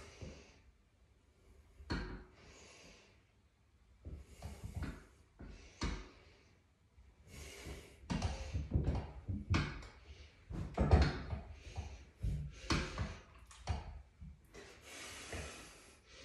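Irregular knocks and thuds with rustling and breathing, from a person shifting about on a loaded seated calf raise machine.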